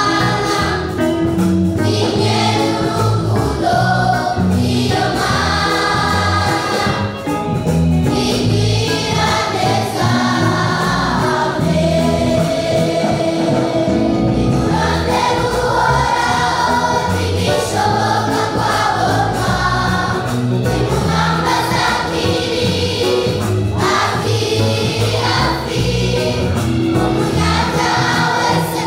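A children's choir singing a gospel song together, many voices in unison, continuously.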